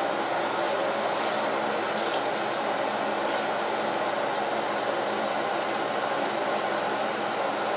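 Pot of chicken, onions and oil cooking on a gas stove: a steady hiss, with a few faint light ticks as spices and ingredients are dropped in.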